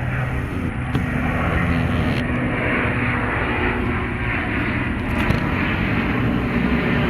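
Fixed-wing aircraft engine running, a steady loud rushing with a low hum.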